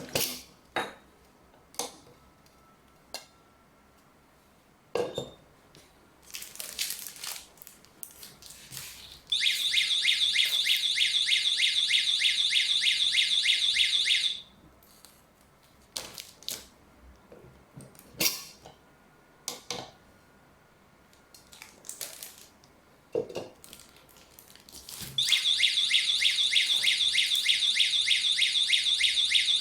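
Wireless high-decibel alarm sounding a loud, rapidly pulsing high electronic tone for about five seconds, set off when the dual infrared beams are broken. It sounds again near the end. Scattered clicks and knocks come in between.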